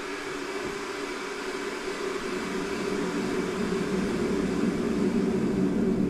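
A low, steady droning hum that slowly grows louder.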